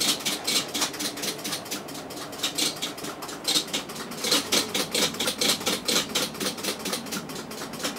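Vacuum-tube CNC control cabinet of a Ward turret lathe clicking steadily, about six or seven clicks a second, as its clock pulses and steps the counters through the peg-board program in auto mode.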